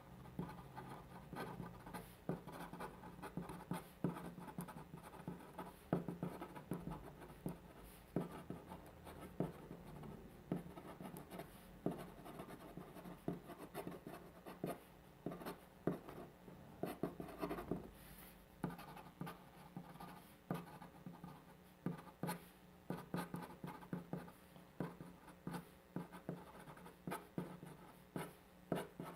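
Pen writing on paper: a continuous run of short scratching strokes and small ticks as characters are written by hand, at an uneven pace.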